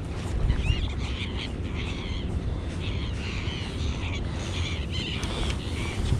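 A flock of gulls calling: many short, arched cries overlapping throughout, over a steady low rumble.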